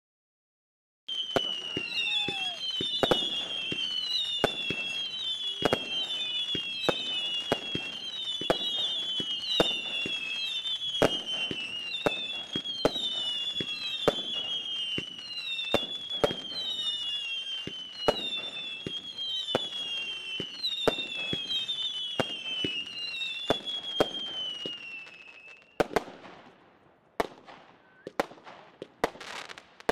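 Consumer firework cake firing shot after shot, each one a falling whistle with a sharp pop, more than one a second and overlapping. The whistles stop suddenly near the end and give way to scattered crackling pops of the bursting stars.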